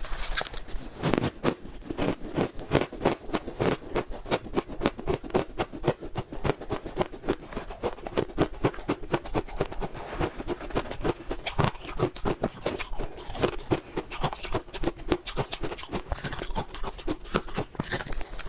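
Close-miked crunching of freezer frost chewed in big mouthfuls: a dense, unbroken run of crisp crunches, several a second.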